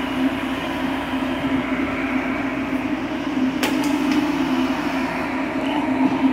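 A power tool's motor running steadily, a constant hum with hiss, with a few light clicks about three and a half to four seconds in.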